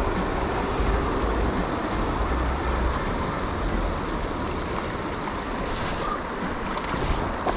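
River water rushing steadily, with a low rumble underneath.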